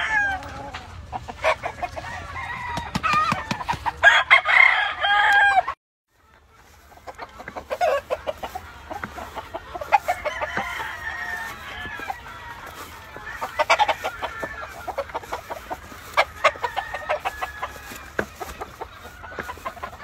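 Gamefowl roosters crowing and clucking, several calling over one another from the pens. The sound cuts out suddenly for a moment about six seconds in, then carries on.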